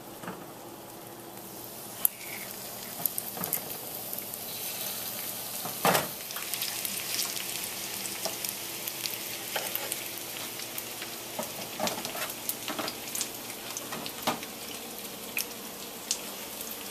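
Floured chicken thigh pieces sizzling and crackling in hot vegetable oil in a frying pan as they are laid in one by one, the sizzle growing fuller as the pan fills. A few sharp clicks come through along the way.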